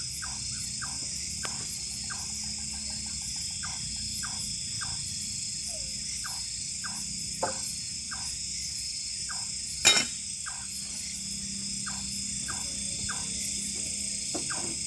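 Night chorus of crickets and other insects, a steady high-pitched trill, with many short ticks over it and a single sharp knock about ten seconds in.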